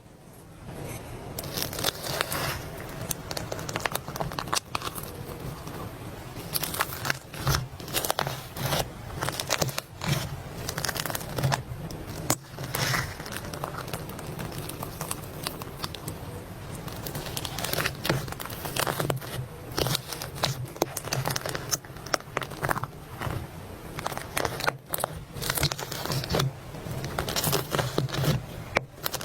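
Slime being squished and stretched by hand, giving dense, irregular crackling and popping clicks over a low steady hum.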